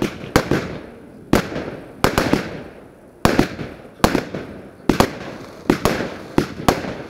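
Display fireworks going off in a rapid, irregular series of sharp bangs, roughly one or two a second, each trailing off briefly after the burst.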